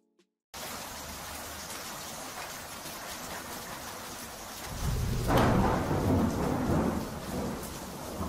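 Rain-and-thunder sound effect: steady rain comes in about half a second in, and about five seconds in a thunderclap breaks and rumbles low, the loudest part, fading over a couple of seconds under the rain.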